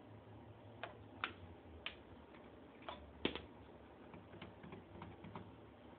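Irregular sharp clicks from a circuit-bent telephone answering machine as its buttons and switches are worked, about nine in all, the loudest a little past the middle and fainter ones near the end.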